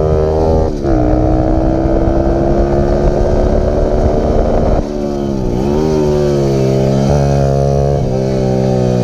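Stomp pit bike's small single-cylinder engine running hard under a rider on track. The pitch drops once about a second in, then climbs slowly through a long pull, falls away about five seconds in as the throttle comes off for a corner, and picks up again.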